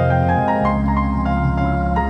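Background music: calm new-age instrumental with soft keyboard or piano notes over sustained tones.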